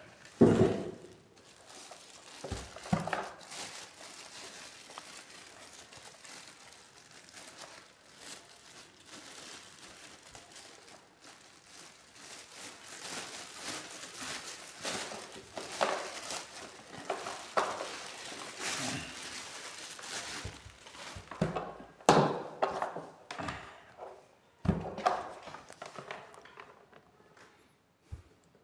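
Clear plastic packaging bag crinkling and rustling as it is pulled off a new mini pressure washer, with several dull thumps as the unit and its box are handled and set down.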